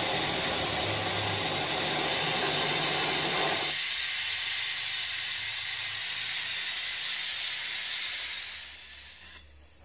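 Welding torch modified to burn LPG with compressor air, its flame burning with a steady hissing roar. About four seconds in, the flame's low rumble drops out, leaving a hiss of gas and air from the nozzle that fades and stops near the end.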